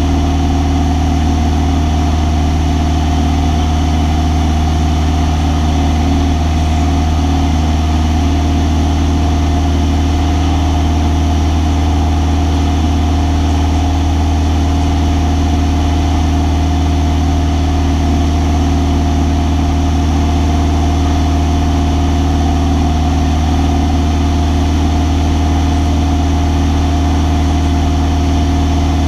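Single-engine propeller aircraft's engine and propeller running steadily in flight, heard from inside the cockpit: a loud, even low hum with no change in pitch.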